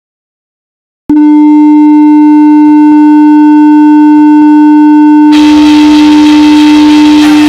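Hockey arena goal horn, the Fort Wayne Komets' horn, sounding one long steady blast on a single low note that starts abruptly about a second in, with crowd noise rising under it about five seconds in.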